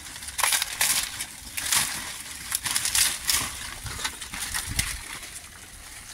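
Irregular crackling and rustling from the green leaves piled over a pot on a wood fire and the fire beneath it, loudest in the first half.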